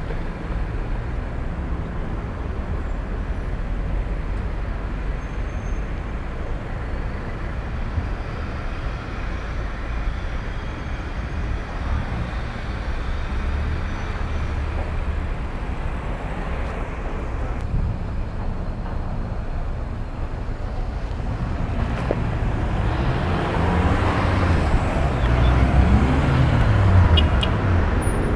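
City street traffic: cars and vans driving past at an intersection, a steady engine and tyre rumble. Over the last few seconds it grows louder, with engines rising and falling in pitch as vehicles accelerate past.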